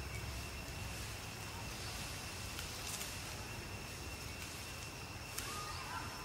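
Faint outdoor background: a steady high-pitched whine over a low rumble, with a few faint ticks and a short faint squeak near the end.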